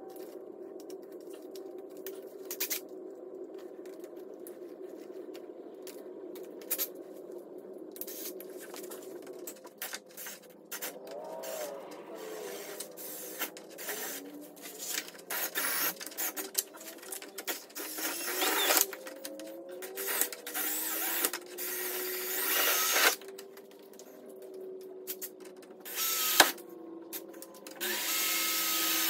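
Handheld power drill drilling out spot welds in a car's steel body panel. The motor hums steadily at first, then runs in irregular bursts that speed up and slow down, with a sharp click near the end.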